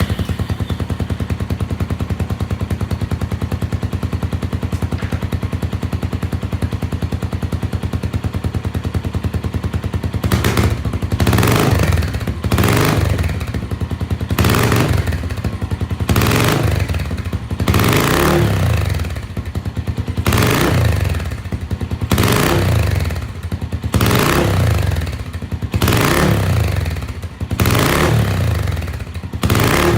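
Suzuki Grasstracker's single-cylinder engine breathing through an aftermarket silencer, idling evenly just after starting. From about ten seconds in it is blipped up and let fall back, roughly once every two seconds, about ten times.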